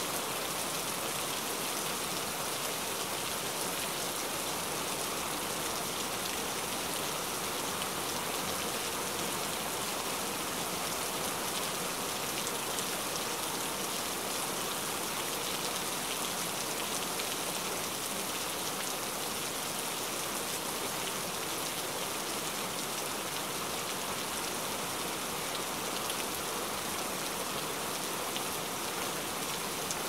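Heavy rain sound effect: a steady, dense hiss of falling rain with many fine drop patters, holding an even level throughout.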